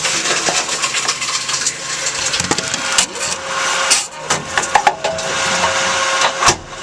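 Tomra T-53 reverse vending machine running as it takes in a container, a steady mechanical noise with rapid rattling clicks and several heavier clunks.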